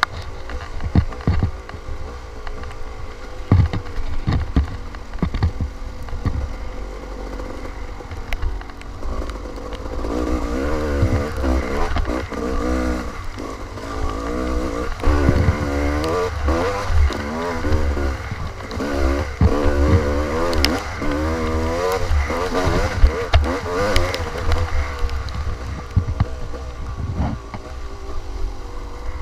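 Dirt bike engine running under load on a rough trail while stuck in fourth gear by a faulty shift lever, with knocks and clatter from the bike over the ground. From about ten seconds in, the engine note rises and falls over and over as the throttle is worked on and off.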